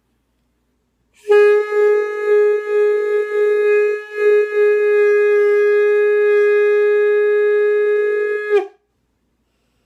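A partly assembled wind instrument sounding one long held note aimed at G sharp. The note wobbles and dips in loudness for the first few seconds with a brief break, then holds steady for about four seconds and stops abruptly.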